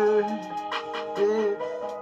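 Backing music with sustained pitched tones and sharp percussive hits, between sung lines.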